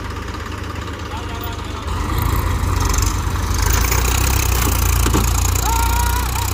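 Massey Ferguson tractor's diesel engine running steadily, getting clearly louder about two seconds in, with voices faintly over it.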